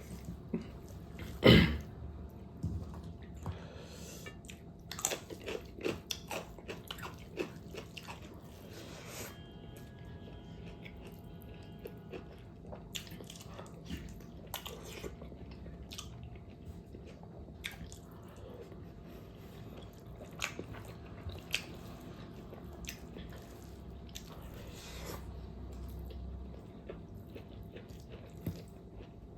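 Close-up chewing and biting of pork fat: wet mouth clicks, smacks and crunches at an irregular pace, with one loud sharp smack about a second and a half in.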